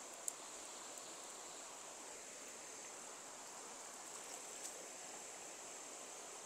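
Faint, steady rush of a flowing river, with a steady high hiss over it and a sharp click shortly after the start.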